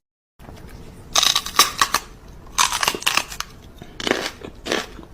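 Something crunchy being bitten and chewed: loud, crackly crunches in bouts about every second or so.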